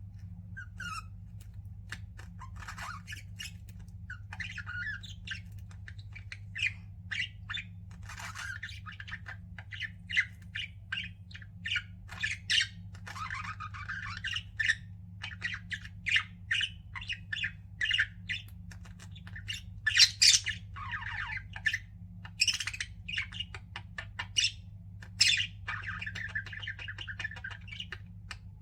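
Pet budgerigars chattering, with rapid overlapping chirps, trills and sharper squawks, over a faint steady low hum.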